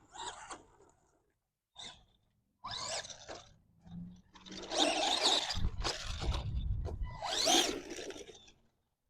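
Arrma Gorgon RC monster truck's stock brushed electric motor whining in a few short bursts of throttle, then a longer run of several seconds from about four seconds in, with the tyres churning dirt.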